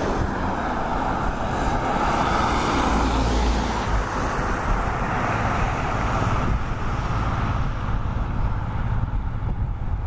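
Steady rumble of distant road traffic, with no bird calls heard.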